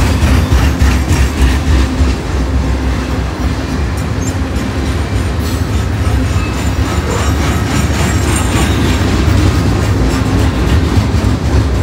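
CSX mixed freight train of tank cars, autoracks and covered hoppers rolling past close by: a steady, loud rumble with wheels clicking over the rail joints.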